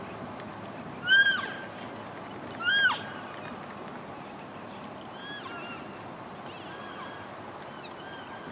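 Elk cows and calves calling to one another: two loud, high, chirping calls about a second and a half apart, each rising then falling in pitch, followed by several fainter calls of the same kind.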